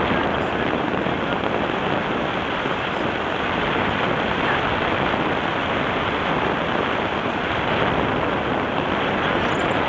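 Wind rushing over the microphone of a paraglider's camera in flight: a steady, loud hiss of air noise.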